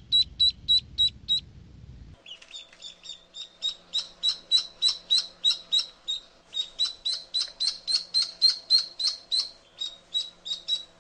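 Duckling peeping: a rapid, steady run of short, high 'chip chip' peeps, about four a second, breaking off briefly about a second and a half in and then resuming. This insistent peeping is the duckling's crying call.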